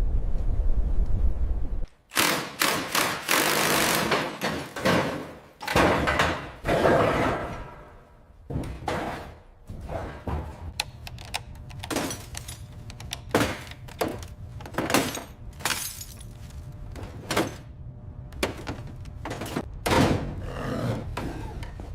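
A deep rumble, then heavy crashing and breaking impacts that give way to a long run of separate knocks and thunks.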